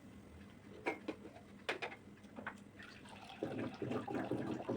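A few light clicks of kitchenware, then water starts running, louder, about three and a half seconds in.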